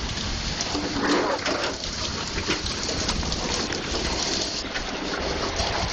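Hailstorm: large hailstones and rain falling hard, a dense run of countless small impacts over a steady hiss.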